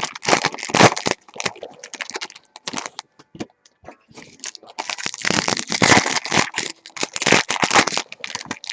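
Foil trading-card pack wrappers crinkling and crackling as they are handled, with scattered sharp clicks. The sound comes in two dense stretches: one in about the first second and a longer one from about five seconds in until near the end.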